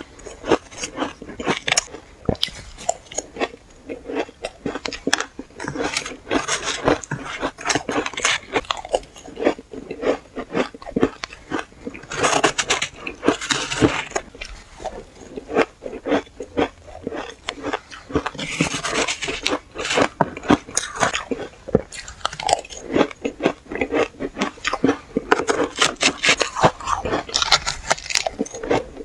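Close-up crunching of powdery shaved ice being bitten and chewed: a dense run of crisp crackles, with a few thicker bursts of crunching as fresh bites are taken.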